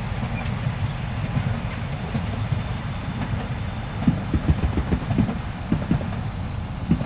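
Narrow-gauge steam train, hauled by tank locomotive 99 1782-4, running past with a steady low rumble. Irregular low thumps grow more frequent from about four seconds in.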